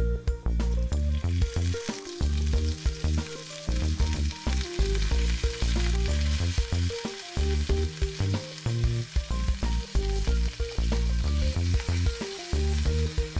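Food sizzling as it fries in a miniature pan, starting about a second in, over background music with a heavy bass line.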